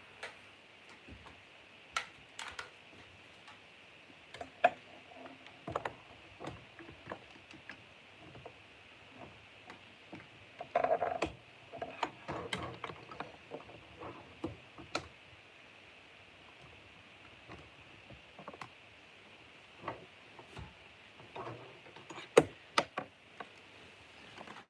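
Faint scattered clicks and light rustling, with a denser patch of rustling about eleven seconds in, over a faint steady hiss.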